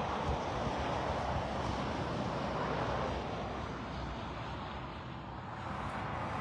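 Steady road traffic noise from passing vehicles. It swells over the first few seconds and eases off about five seconds in.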